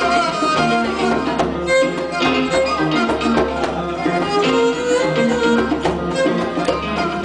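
Live band music: plucked strings with a held melody line over them.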